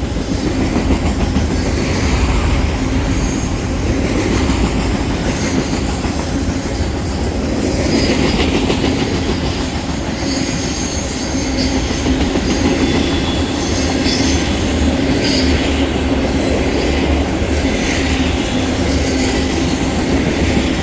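BNSF freight train of trash cars rolling past close by: a steady rumble of wheels on rail with clacking, and intermittent high-pitched wheel squeal.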